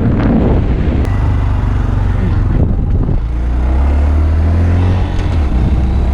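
2015 Honda Grom's 125 cc single-cylinder engine running at a steady pace, with wind rushing over the helmet camera's built-in microphone.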